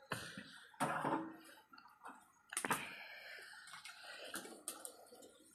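Scattered clicks and light clatter of utensils and metal pots at an open-air cooking fire, with two louder noisy bursts about a second in and about two and a half seconds in.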